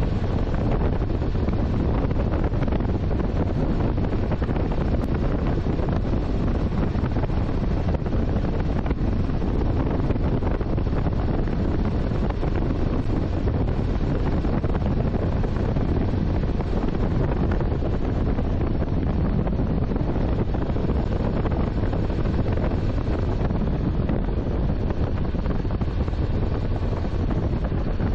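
Steady wind rushing over the microphone of a motorcycle riding at speed, without a break.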